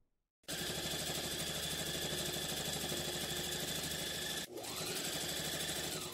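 Brother ST371HD heavy-duty sewing machine stitching at speed through a folded puffer winter jacket, a steady rapid needle clatter that starts about half a second in, breaks off briefly at about four and a half seconds, then runs on. It goes through the thick layers without hesitating.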